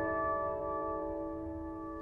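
Piano music: a chord held and slowly fading away.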